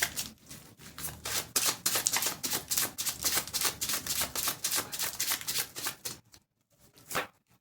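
A deck of tarot cards being shuffled by hand, a fast run of light papery clicks that stops about six seconds in. One or two single taps of a card follow near the end.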